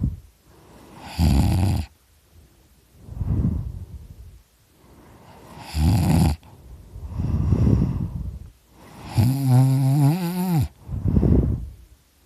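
A person snoring loudly: three harsh snores about four seconds apart, with softer breaths between them. The last snore is the longest, with a wavering low buzz.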